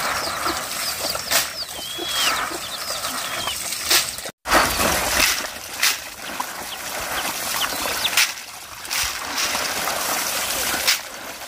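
Water splashing and trickling, with several short splashy knocks. High, quickly repeated chirps sound over the first four seconds, and the sound cuts out abruptly for a moment at about four seconds in.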